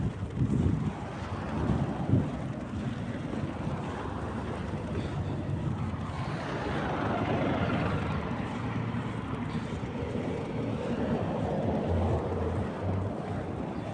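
Blizzard wind rushing over the microphone, with low buffeting in the first couple of seconds and the rushing swelling in the middle before easing.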